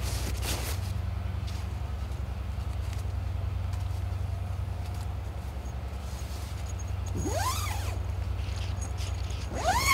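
The zip on a bivy tent's door pulled twice: about seven seconds in and again near the end, each pull a short buzz that rises and falls in pitch. Under it runs a steady low drone.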